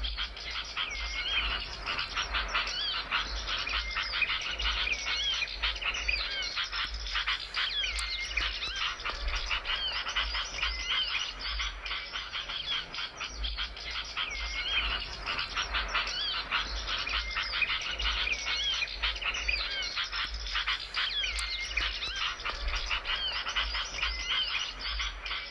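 A small songbird sings a rapid, dense chattering song full of high twittering notes. This is a recorded bird-lure (pikat) or masteran song track, and the same phrase comes around again about every six to seven seconds.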